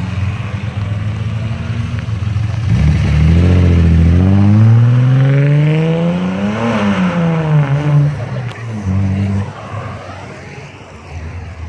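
An old BMW coupe's engine revving hard as the car accelerates away. The note climbs steadily for a few seconds, peaks a little past the middle, then drops and fades as the car goes off down the road.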